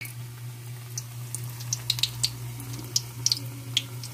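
Mashed saba banana and ube patties frying in hot oil in an aluminium wok: irregular sharp crackles and pops over a steady low hum.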